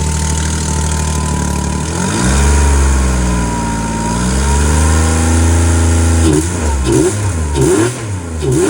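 Freshly reinstalled 5.3-litre LS V8 in a rock buggy running just after start-up: it idles steadily, is revved up and held for a few seconds, then settles and is given several quick throttle blips near the end. A small exhaust leak is heard, which the owner says needs tightening up.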